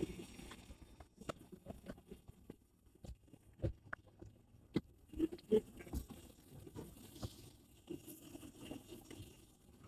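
Faint, irregular footsteps and knocks, with the rustle of a phone being handled, while climbing aircraft boarding stairs.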